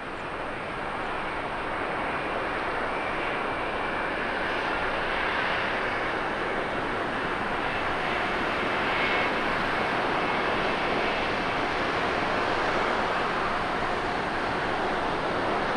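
Jet engines of a Boeing 787-9 Dreamliner on final approach, a steady rushing noise that grows louder over the first couple of seconds as the airliner nears and then holds, with a faint high whine above it.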